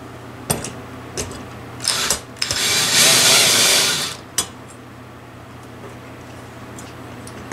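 Cordless drill/driver running for about a second and a half, driving a screw to fix the fan's mounting bracket to the ceiling box. Sharp clicks and knocks of handling come before it, and another click follows.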